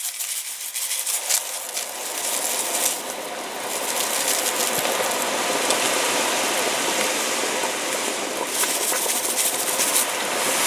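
Caustic soda going into a container for paint stripping, a steady hissing that builds over the first few seconds and then holds, with a few light clicks early on.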